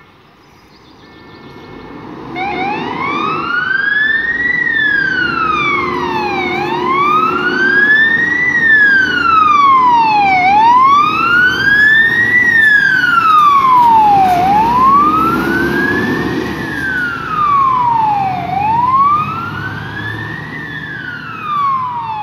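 Fire engine siren on a Scania P450 tanker, starting about two seconds in and wailing, rising and falling in pitch about every four seconds over the truck's diesel engine as it sets off on an emergency run. It grows a little fainter near the end as the truck drives away.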